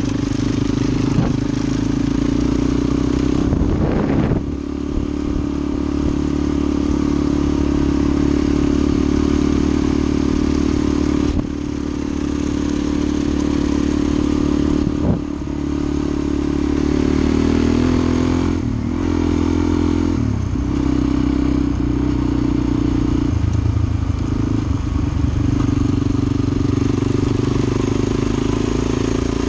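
Suzuki DR-Z400 single-cylinder four-stroke engine running steadily under way, heard from on the bike, with its note dipping briefly a few times as the throttle eases.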